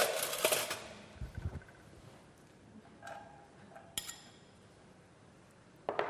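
Chopped onion tipped into oil in a pot on a gas burner, with a short hiss at the start that dies away within a second or two; a single light click about four seconds in.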